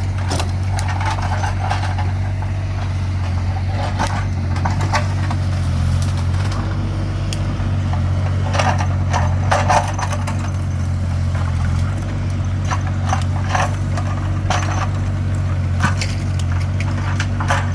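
A heavy engine running steadily at a low, even pitch, with frequent sharp clanks and knocks of scrap metal being handled, clustered between about eight and ten seconds in.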